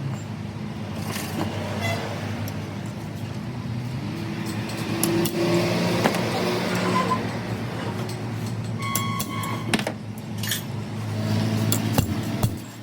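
A machine running steadily with a low hum, with scattered metallic clicks and clinks.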